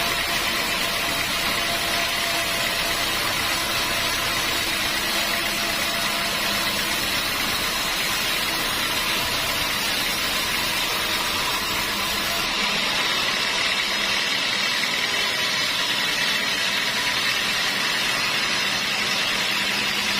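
Sawmill machinery running steadily with a constant mechanical drone. About twelve seconds in the sound changes, losing most of its low rumble.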